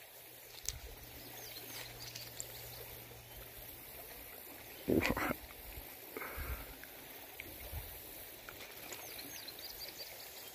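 Faint outdoor background hiss, with a low steady hum for the first few seconds. About five seconds in there is one short, voice-like pitched sound, and a few soft knocks follow.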